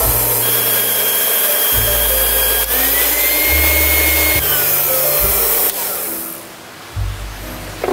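Electric mixer whirring as its beater whips banana bread batter, with a motor whine that rises in pitch about three seconds in; the whirring dies away about six seconds in. Background music with a bass line plays underneath.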